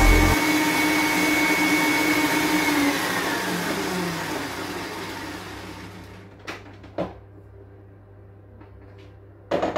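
Electric stand mixer beating a creamed butter-and-sugar cake mixture, its motor running steadily and then slowing with a falling whine, winding down to a stop by about six seconds in. A few short clicks and knocks follow as the mixer head is lifted.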